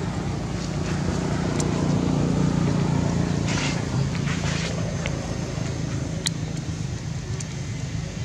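A vehicle engine running steadily close by, a low hum that grows a little louder about two seconds in, with a few faint clicks and two brief rustles near the middle.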